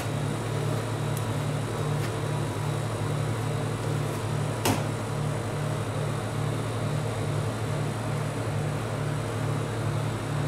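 Low, steady pulsing hum of the rolled-ice-cream machine's refrigerated cold plate, with a metal spatula scraping and spreading ice cream base across the frozen steel surface and one sharp tap about four and a half seconds in.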